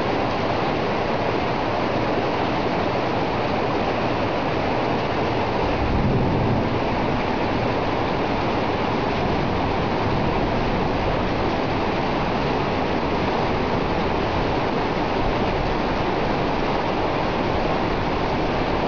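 Flash-flood water rushing and churning in a steady, unbroken stream.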